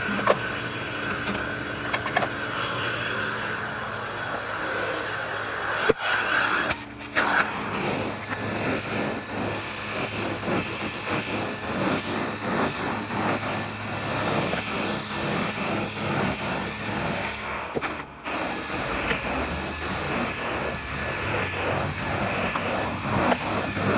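Truck-mounted carpet extractor pulling suction through a floor wand stroked across carpet: a steady, loud rushing hiss that wavers with the strokes and drops out briefly twice.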